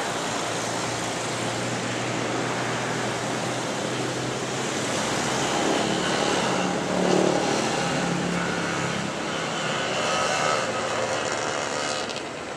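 A motor vehicle running with a steady noise, somewhat louder through the middle and dropping slightly near the end.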